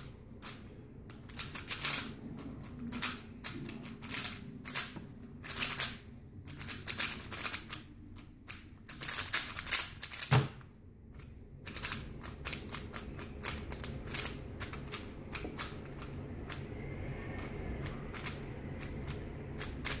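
Plastic 3x3 speedcube being turned fast in a speedsolve: a rapid, uneven clacking of layers turning, with a single low thump about ten seconds in. The clicks thin out and grow fainter over the last few seconds.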